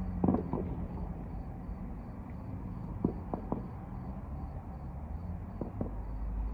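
Distant fireworks going off as scattered dull pops, one pair near the start, three about halfway and two more near the end, over a low steady rumble. A cricket chirps about three times a second throughout.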